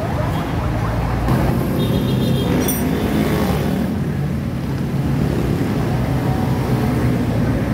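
Steady road traffic: vehicle engines running close by.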